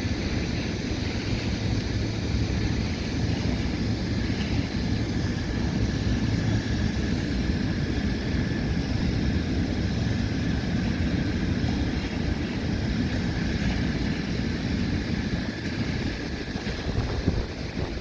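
Wind buffeting the microphone in a steady low rumble, with a faint steady hum underneath during the first few seconds.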